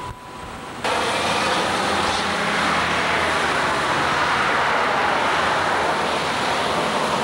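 Steady road and wind noise of a moving car: a loud, even rush that starts abruptly about a second in.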